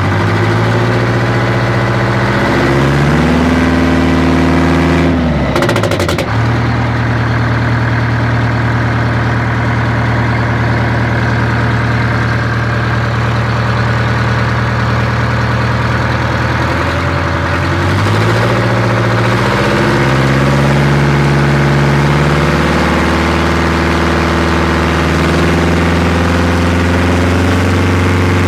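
Detroit Diesel 8V71 two-stroke V8 diesel running loud through straight-pipe exhaust. It is revved up about three seconds in, drops sharply around six seconds, runs steady for a long stretch, then is revved again from about eighteen seconds and eased back down near the end.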